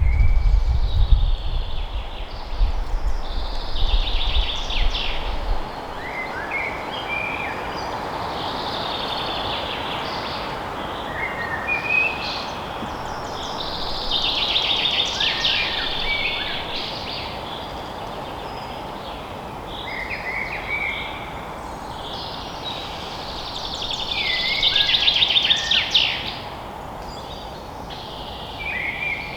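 Forest songbirds singing, with short trilling phrases repeating every few seconds over a steady rushing background noise. A low rumble during the first five seconds stops abruptly.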